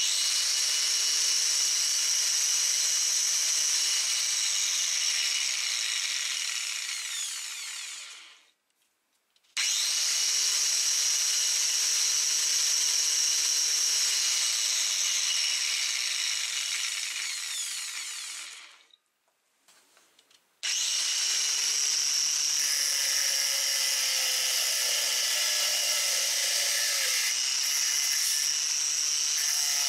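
Bosch GWS 7-115 angle grinder with freshly replaced bearings, running free with a steady high whine. Twice it is switched off and winds down to silence, and it is started a third time and keeps running.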